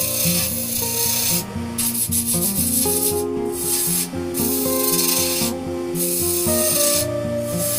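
Sandpaper rubbing on wood: a steady hiss that breaks off briefly about five times as the strokes pause. Background music with sustained notes plays underneath.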